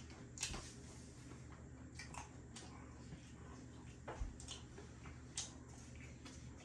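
Quiet meal sounds: scattered small clicks and soft wet mouth noises, a few a second at most, over a steady low hum.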